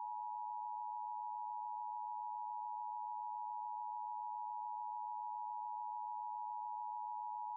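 Emergency Alert System attention tone: a single steady electronic tone just under 1 kHz, held unbroken at an even level, signalling that an emergency alert message is about to be read.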